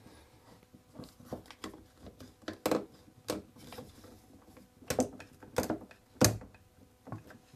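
Sharp clicks and clacks at uneven intervals as the trigger of a Quick-Grip one-handed bar clamp, set as a spreader, is squeezed to force apart the loose joints of a wooden spoked wheel. Five louder clacks come through the middle of the stretch.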